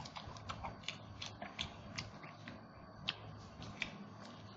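Close-up eating sounds of roast duck being chewed and gnawed off the bone: an irregular run of sharp mouth clicks and smacks, two to four a second, with the loudest about three seconds in.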